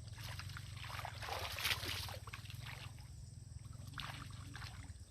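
Water splashing and trickling in irregular bursts, loudest about a second and a half in, over a steady low hum.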